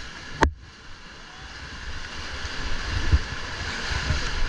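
Rushing, splashing river rapids around an inflatable raft as it is paddled through whitewater, with wind buffeting the microphone. A sharp knock about half a second in is followed by a brief dip, then the water noise builds back up.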